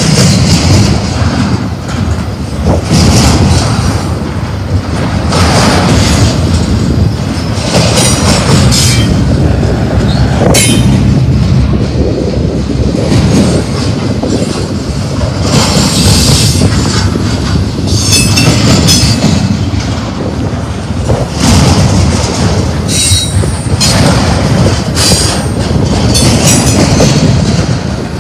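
Double-stack intermodal well cars of a freight train rolling past close by: a steady, loud rumble of steel wheels on rail, with high-pitched wheel squeal coming and going several times.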